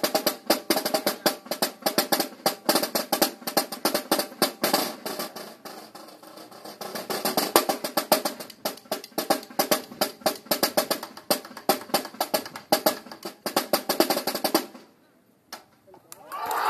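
A banda de guerra snare drum line (cabos cajeros) plays a fast routine of rolls and rapid strokes. It eases off briefly about six seconds in, then stops sharply near the end. After a short pause and one last stroke, a crowd starts cheering.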